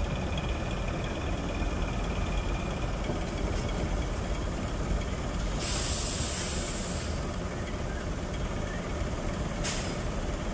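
Diesel engine of a bare Scania K360IB bus chassis running steadily as the chassis is unloaded from a transport truck, with a loud air-brake hiss about six seconds in lasting over a second and a short, sharp hiss near the end.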